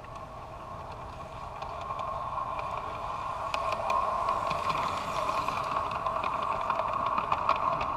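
G scale model steam train running past on garden track: a steady motor and gear whine with irregular clicking of wheels over the rail joints. It grows louder over the first few seconds as the locomotive approaches and stays loud while the cars go by.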